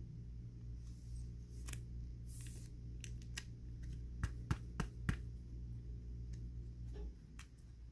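Light plastic clicks and ticks, with a brief scrape about two and a half seconds in, as trading cards are slid into rigid clear plastic toploaders. A low steady hum runs underneath and stops near the end.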